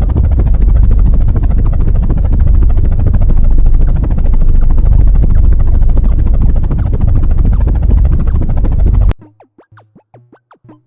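Loud helicopter sound effect: a fast, steady rotor chop over a heavy low rumble, cutting off suddenly about nine seconds in. Quiet music with a steady beat follows.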